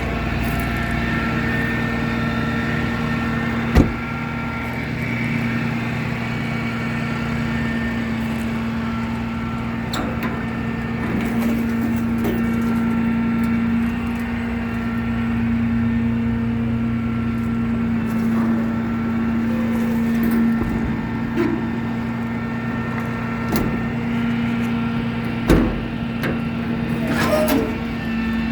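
Truck engine idling steadily, with a couple of sharp knocks, one about four seconds in and one near the end.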